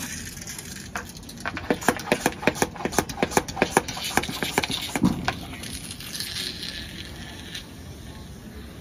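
Hand trigger sprayer on a plastic bottle being squeezed rapidly, a quick run of clicks at about five a second, followed by a steady hiss of fine spray.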